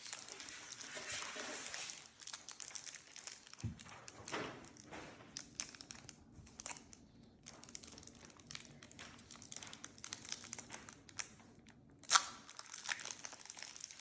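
Foil booster-pack wrapper crinkling as a pack of Pokémon cards is opened and the cards handled, in faint, scattered crackles, with one sharp knock about twelve seconds in.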